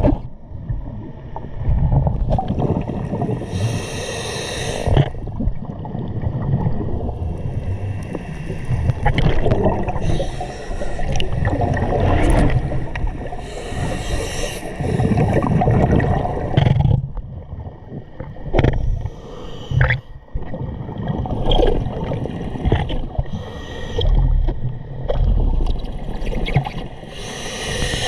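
Scuba diver breathing through a regulator underwater: a short hissing inhalation every ten seconds or so, with longer low gurgling exhalations of bubbles in between.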